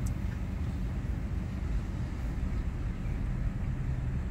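Mazda car's engine idling, a steady low rumble heard from inside the cabin.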